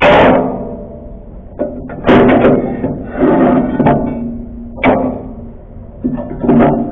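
Steel leaf spring leaves of a Fuso truck clanking together as they are handled and shifted: a string of irregularly spaced metallic knocks, each ringing briefly.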